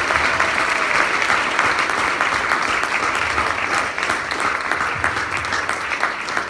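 Audience applauding: many hands clapping steadily in a room.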